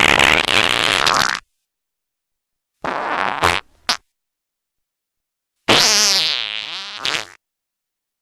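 Three fart sounds in a row, each one to two seconds long, separated by dead silence: a raspy one, a shorter one ending in a quick pop, then a longer one that wavers up and down in pitch.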